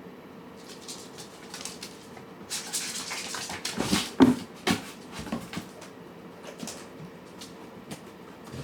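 Cats and kittens eating: scattered small clicks and crunches, with a burst of rustling and a few knocks a little before the middle.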